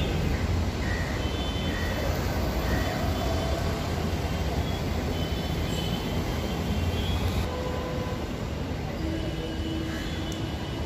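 Steady low rumble of city traffic, with a few faint short high-pitched tones sounding over it.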